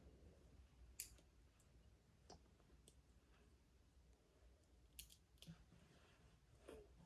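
Near silence with a few faint, scattered clicks of plastic Lego pieces being handled and pressed together.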